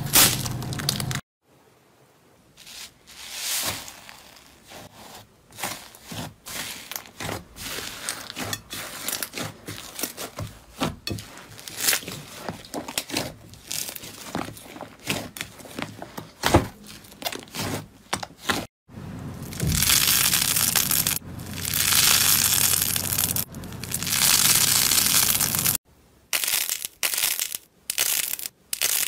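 Slime worked by hand in a run of short clips: squeezed, stretched and pressed, giving many small crackles, pops and sticky clicks, with a stretch of dense crackling near the end. The sound cuts off sharply between clips.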